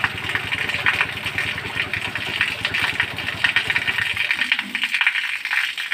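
Motorcycle engine idling while it drives a water pump, then switched off about four seconds in, once the tank is full. A lighter rattle carries on after the engine dies.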